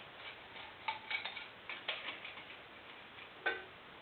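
Irregular light metallic clicks and ticks, a few with a short ring, from steel feeler gauge blades and a precision straight edge being handled against a 420A engine block's deck while its flatness is checked. The loudest click comes about three and a half seconds in.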